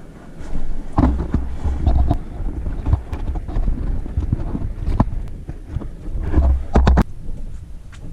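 Handling noise from a camera on a pole as it is moved and turned by a caver in a narrow rock passage. Irregular knocks, scuffs and clicks come throughout. Heavy low thumps fall about a second in and again near the end.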